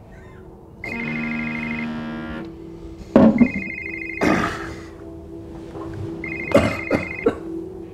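Mobile phone ringing: a trilling ringtone in about one-second rings, repeated every two to three seconds, over a low sustained music drone. A few sharp knocks and rustles fall between the rings.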